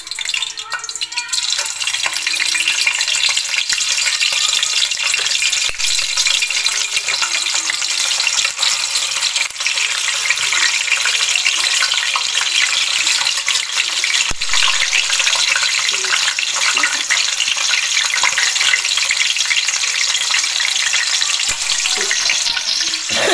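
Boiled pieces of native chicken deep-frying in a pot of hot oil: a dense, steady sizzle and crackle that builds up about a second in as the pieces go into the oil.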